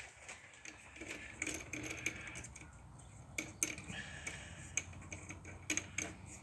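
Scattered light metallic clicks and taps as a small drill bit is handled and fitted at a drill press, a few in quick succession.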